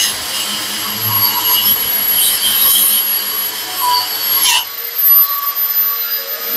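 Brushless wall-chasing saw running, with a steady high motor whine over the grinding of its blades cutting a groove in a wall. About four and a half seconds in the whine dips briefly, then settles slightly higher as the grinding drops away.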